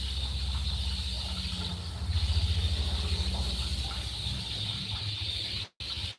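Linguiça sausage frying in a pot, a steady sizzling hiss over a low rumble. The sound cuts out for a moment near the end.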